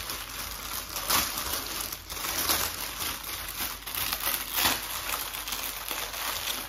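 Clear plastic bag crinkling as it is handled and turned over in the hands, an uneven rustling and crackling.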